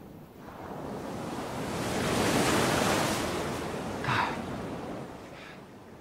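Sea surf: a wave rushes in, swelling to a peak about two to three seconds in and then washing away.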